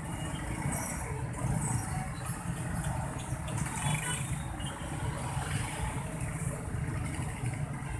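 Motorcycle engines idling and pulling away in a steady low rumble of street traffic. A single sharp knock comes about six and a half seconds in.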